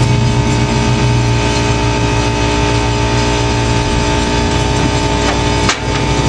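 An engine running steadily at an even speed, with one sharp click near the end.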